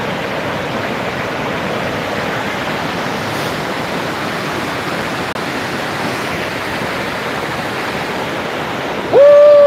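Mountain river rushing over boulders in rapids: a steady rush of water. About nine seconds in, a man's voice cuts in loudly with one long held note that rises at its close.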